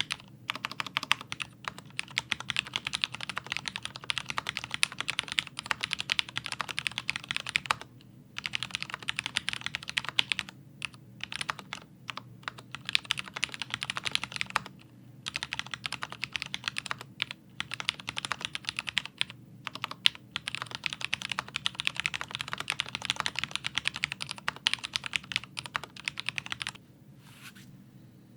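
Fast typing on a Leopold FC650MDS mechanical keyboard with Cherry MX Speed Silver linear switches lubed with Krytox: a rapid run of keystroke clacks with a few short pauses, stopping a little before the end.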